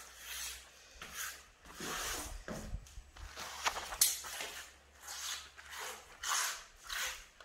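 Rubber grout float scraping and rubbing grout across floor tiles in repeated short strokes, about two a second, with a couple of sharper clicks near the middle as the float catches on tile edges.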